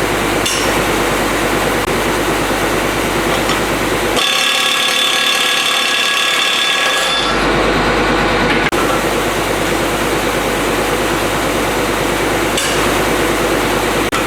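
Harbor Freight Earthquake 1/2-inch pneumatic right-angle impact wrench hammering rapidly on a tight nut, overdriven on 175 psi air. Its tone changes for a few seconds about four seconds in, and it pauses briefly near the end.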